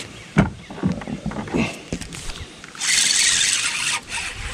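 Spinning reel's drag giving line in a hissing buzz for about a second as a hooked fish pulls against the bent rod. There is a sharp knock about half a second in.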